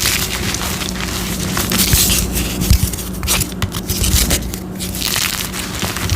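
Gym chalk being crushed, with dense, irregular crunches and crackles of the chalk breaking down into powder.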